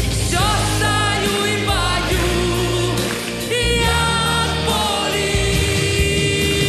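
A woman sings full-voiced into a microphone over instrumental accompaniment, holding long notes that slide in pitch, with a falling glide near the end.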